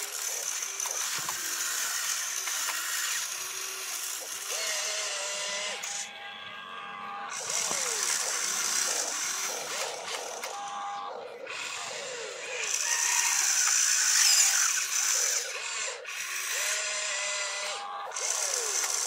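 Electric gear motors of a toy-scale RC excavator whirring and whining in spurts as the boom, arm and turret move, the pitch sliding up and down, with short pauses between moves.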